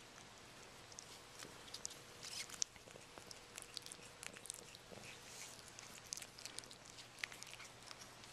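Faint, irregular wet clicking and smacking from newborn Sphynx kittens suckling at their mother and the mother cat licking them.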